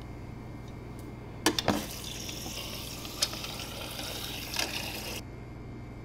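Water running and filling a container, starting with a couple of sharp clicks about a second and a half in and cutting off suddenly near the end, over a low steady hum.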